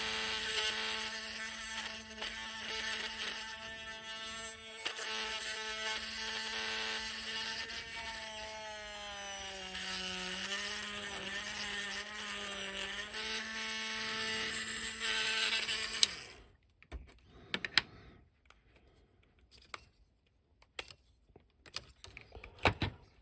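Small electric hobby drill with a 1.0 mm bit running with a steady whine, its pitch sagging from about 8 to 13 seconds in as the bit bites into the action figure's plastic. It stops about 16 seconds in, and faint handling clicks follow.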